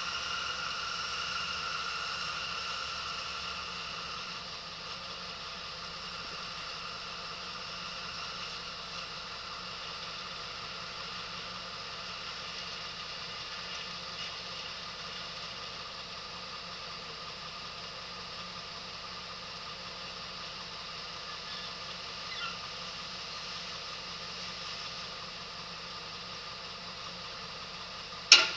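John Deere wheel loader's diesel engine running with a steady high whine, louder in the first few seconds and easing off as the loader drives away, then holding steady. A sharp knock sounds just before the end.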